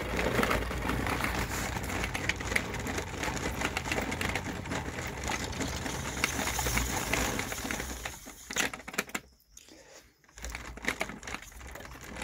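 3D-printed dual-cone pulse motor coasting after being switched off, a dense rapid clicking clatter from its spinning magnet rotors that dies away about eight seconds in. A few short knocks follow as the stopped rotor is handled.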